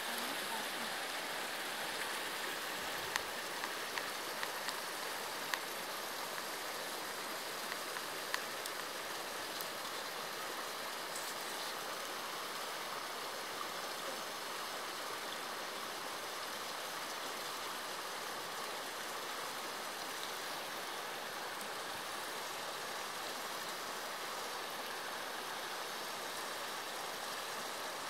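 Small mountain stream flowing over rocks with a steady rushing. A few faint clicks in the first several seconds.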